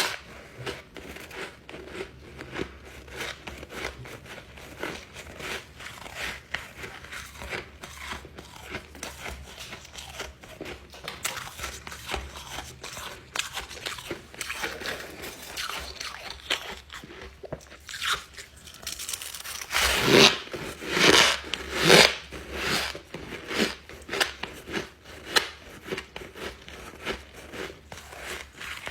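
Ice being bitten and chewed close to the microphone: a continuous run of crisp, irregular crunches, with a few louder bites about two-thirds of the way in.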